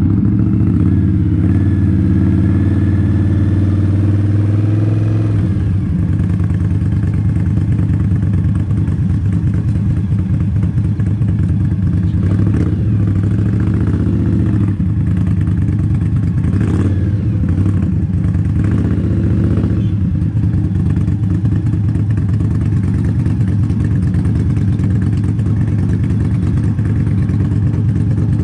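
Motorcycle engine running steadily under way, a continuous low rumble. The engine note changes about five seconds in.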